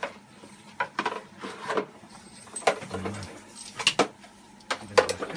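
Irregular sharp clicks and knocks, about eight in all, of metal snake tongs and a pinning pole tapping and bumping on a hard floor while a snake is held down.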